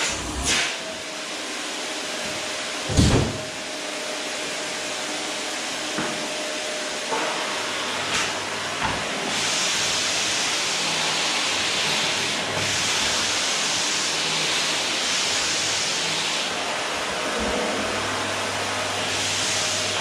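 Electrolux canister vacuum cleaner running with a steady suction hiss, which grows brighter in stretches during the second half. A single thump about three seconds in.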